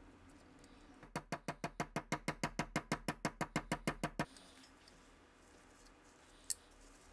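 Rapid, evenly spaced sharp clicking, about seven or eight clicks a second for about three seconds, stopping abruptly, then one sharp click near the end.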